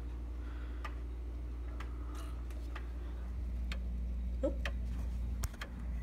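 Grandfather clock movement ticking, about once a second, with a short mechanical clunk about four and a half seconds in.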